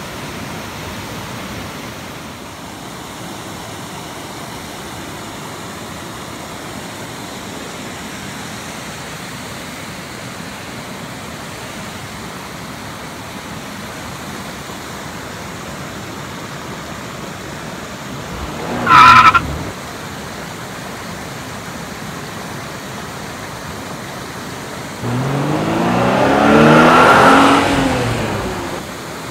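Steady rushing of a mountain torrent. About two-thirds of the way through comes a short, much louder sound with a wavering pitch. Near the end a longer, louder sound of about three seconds rises and falls in pitch before fading.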